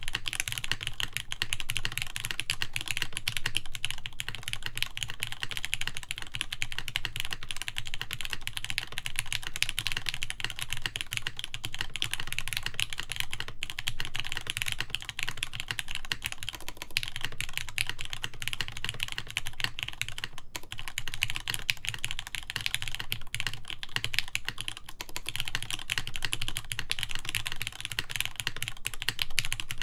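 Continuous fast typing on a mechanical keyboard with lubed Gateron X linear switches, 65 g springs, an aluminium top-mount plate and GMK keycaps: a dense, steady run of keystroke clicks with some deeper thocks.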